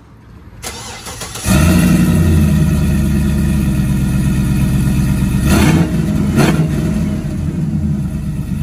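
Chevrolet Trailblazer SS's 6.0-litre LS2 V8 starting up, catching about a second and a half in and then running loud and steady, with two short blips of the throttle a little past the middle before it settles to idle.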